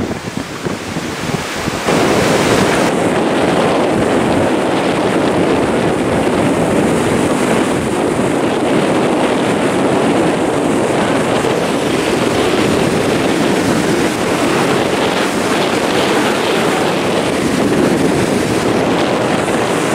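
Ocean surf breaking and washing onto a sandy beach, mixed with wind buffeting the microphone. The noise is steady, a little quieter for about the first two seconds.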